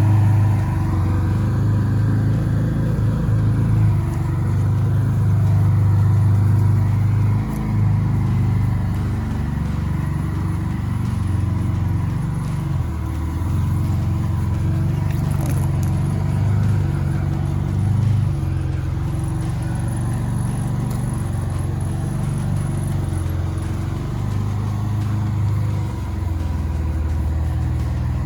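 A vehicle's engine running steadily at low speed while it tows a heavy load across the ground.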